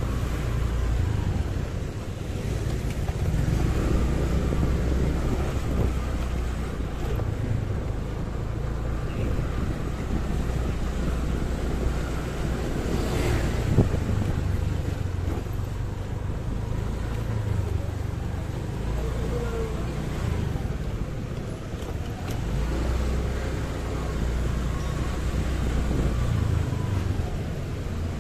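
Riding a motorcycle through city traffic: a low engine and road rumble that swells and eases, with wind buffeting the microphone and other vehicles around. A single short sharp knock about halfway through.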